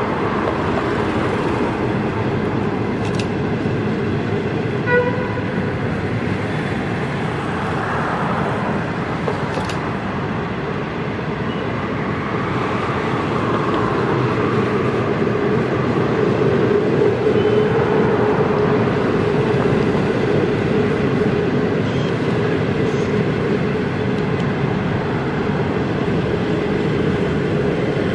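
Train of passenger coaches rolling steadily past on the track, wheels running on rail with a steady hum that grows a little stronger in the second half. A brief toot sounds about five seconds in.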